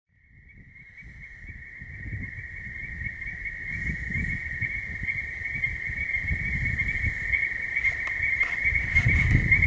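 Frog chorus at a pond: one steady, high, continuous trill that fades in from silence over the first few seconds and then holds, with an irregular low rumble underneath and a few clicks near the end.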